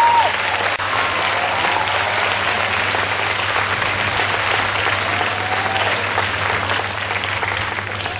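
Audience applauding steadily after a song, the applause easing slightly toward the end.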